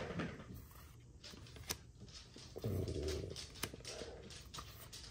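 Trading cards being slid and flicked through the hand, with scattered faint clicks. About two and a half seconds in comes a short, low vocal sound, like a hum or a dog's whine.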